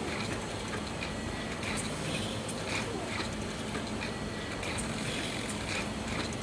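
Siemens ADVIA 1800 chemistry analyzer running, with a steady whir and low hum and irregular sharp clicks and ticks, about two a second, as its reagent probe arms move and step over the reagent trays.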